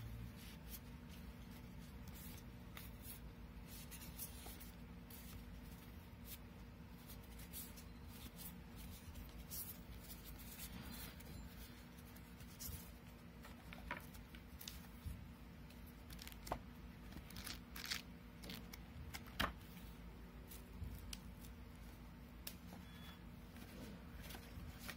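Faint rustling and light clicking of a stack of photocards and postcards being flipped through by hand, with a few sharper card snaps in the second half, over a steady low hum.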